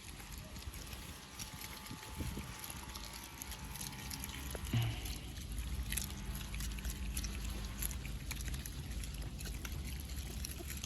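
Water trickling and splashing, with scattered small clicks and a short squeak about five seconds in.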